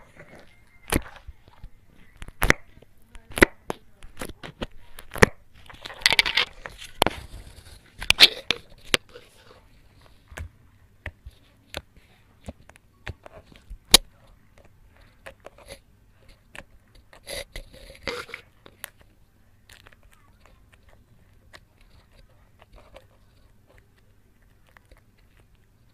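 Black glitter slime being squeezed and poked by fingers, giving many sharp pops and clicks, with a few longer wet squishing stretches. The pops thin out over the last few seconds.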